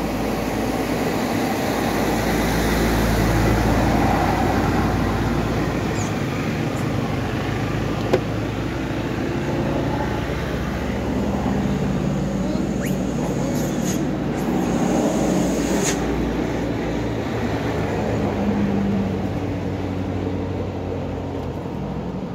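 Road traffic passing: a continuous rumble of vehicle engines and tyres that swells and fades as vehicles go by, with a single sharp click about eight seconds in.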